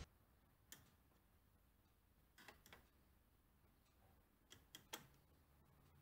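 Faint, scattered clicks of a screwdriver tip against the screws and sheet-steel casing of a car radio-navigation unit, one alone and then two small clusters of three.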